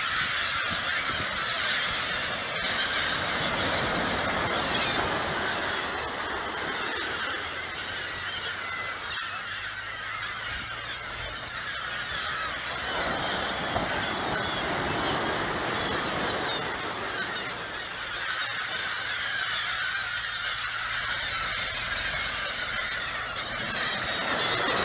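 A large flock of gulls calling, many overlapping cries at once in a continuous din.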